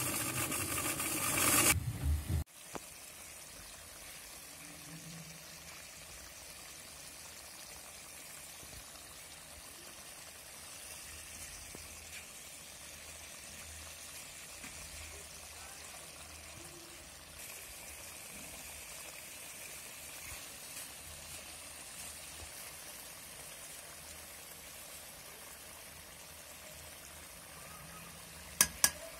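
Electric spice grinder running on round dried red chillies for about two seconds, then cutting off. After that, a faint steady bubbling of chicken curry simmering in an aluminium pot, with two sharp clicks near the end.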